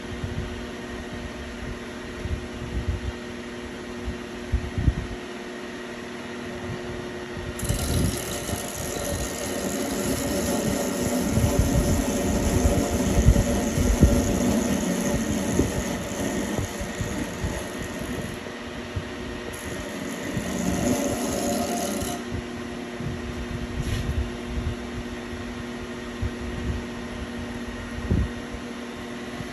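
Besly Model 318 horizontal disc grinder running, a steady electric-motor hum. From about 8 seconds in to about 22 seconds a louder, rough rushing noise rides over it, then stops and the plain hum goes on.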